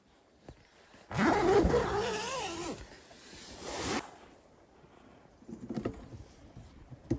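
REI Co-op tent door zipper being unzipped in one long pull of about three seconds, wavering in pitch as the hand moves and stopping abruptly. A short click near the end.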